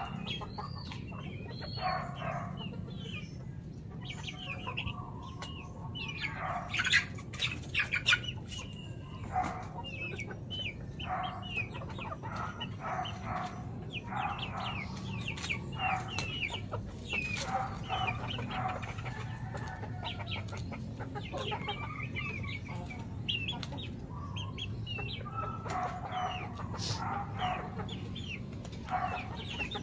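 Native chickens clucking, many short calls one after another, with a few sharper, louder calls about seven to eight seconds in.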